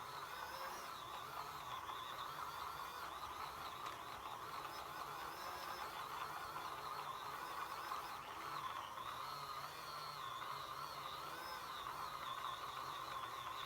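Small electric motor of a mini makeup brush washing machine running, a steady whir with a wavering high whine over it.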